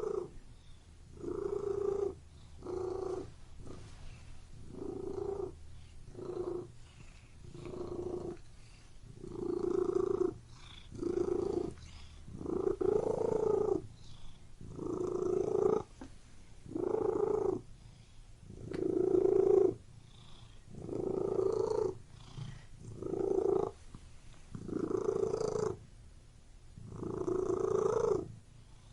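Domestic cat purring, heard close up. The purr swells and fades in regular pulses, roughly one every one and a half to two seconds, following the cat's breathing.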